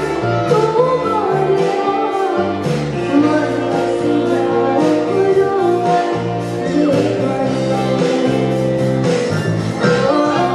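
Female vocalist singing an Assamese song live into a handheld microphone over a live band, with sustained bass notes and a percussion beat underneath.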